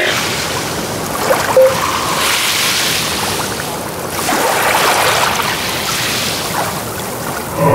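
Ocean waves rushing in and drawing back, a noisy surge that swells and fades twice, with one brief short tone about a second and a half in.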